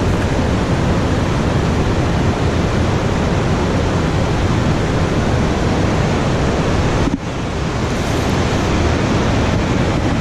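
Steady rush of river current, a loud even hiss of flowing water that dips briefly about seven seconds in.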